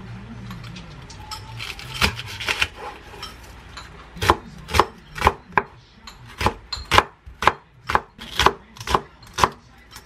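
A chef's knife chopping a green onion on a wooden cutting board. A few cuts come about two seconds in, then steady chopping at about two strokes a second.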